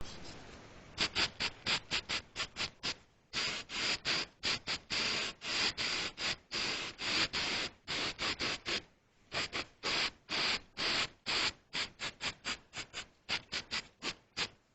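Rapid back-and-forth scraping strokes, about four a second, with two short pauses: hand abrasion or scraping on the rusty metal of a bar clamp.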